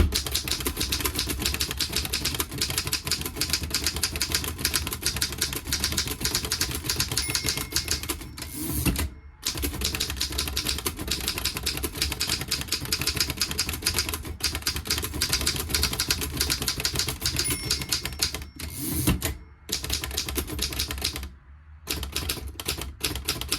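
Royal No. 5 flatbed manual typewriter from around 1915 typed at speed: a fast, steady stream of typebar strikes and carriage-escapement clicks. Typing breaks off twice, about nine seconds in and again near nineteen, for a short sweeping carriage return, with a brief pause a couple of seconds before the end.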